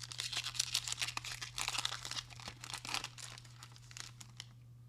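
A trading card pack's wrapper being torn open and crumpled by hand: a dense run of crisp crackling for about three and a half seconds that dies down near the end.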